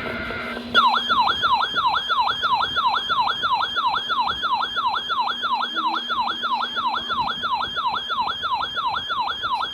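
Emergency Alert System broadcast: the tail of the digital header's warbling data burst, then an electronic alert attention tone that falls in pitch over and over, about three sweeps a second, like a siren, heralding the next weather warning.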